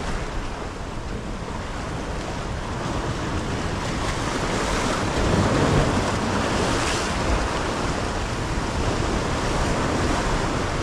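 Waves washing against rock jetty boulders, with wind buffeting the microphone; the wash swells louder about five seconds in.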